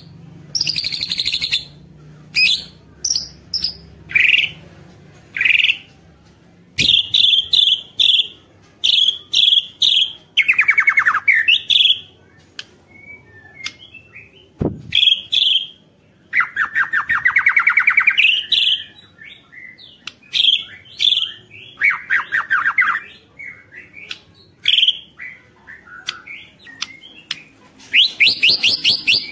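White-rumped shama (murai batu) singing in full song: loud whistled phrases broken by several fast rattling trills, the churring 'ketrekan'. There is a single short knock about halfway through.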